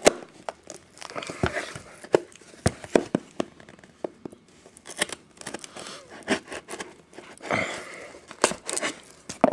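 A trading card box being torn open by hand: its packaging tears and crinkles, among scattered sharp clicks and taps of handling.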